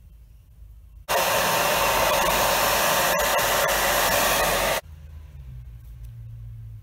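Hair dryer switched on about a second in, blowing steadily for nearly four seconds and then switched off abruptly, heating the engine block so the cylinder sleeve slides in.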